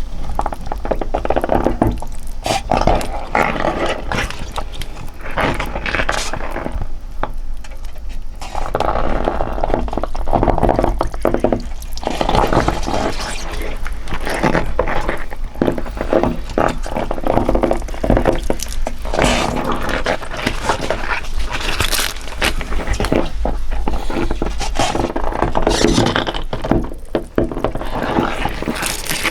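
Hands in thick natural-rubber gloves squeezing a towel in water, making continuous, irregular wet squelches and splashes with a couple of short lulls.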